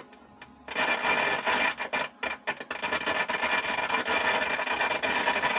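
Loud, harsh crackling and scratching noise from channel 1 of a DOD 430 graphic equalizer, played through the amplifier and speaker, starting about a second in. It comes with no music input connected: a fault noise that the repairer puts down to a bad IC.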